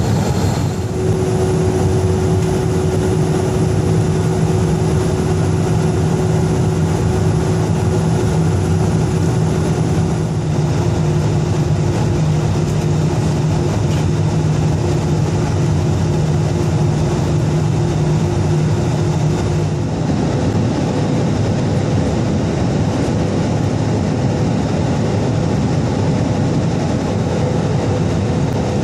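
Steady engine and airflow noise inside the cabin of an Airbus A320-214 with CFM56 turbofans in flight. A steady low hum runs under it and drops away about twenty seconds in, leaving a rougher rumble.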